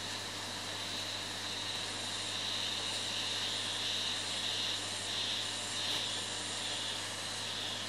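A steady chorus of insects trilling, with a faint shimmering pulse, over an even hiss and a low hum.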